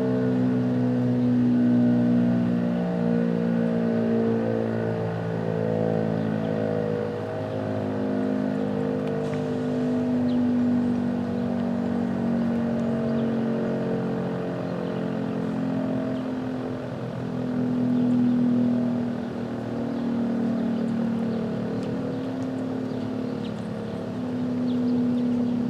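American Signal RM-127 outdoor warning siren sounding a steady tone. Its level swells and fades about every seven to eight seconds as the rotating siren sweeps past.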